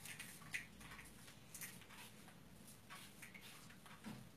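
Near silence: room tone with a few faint, soft clicks and taps.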